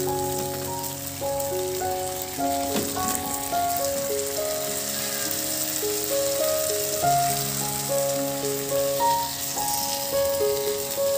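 Background music of sustained, stepping melodic notes, over the steady sizzle of a tomato-and-onion sauce frying in a pan.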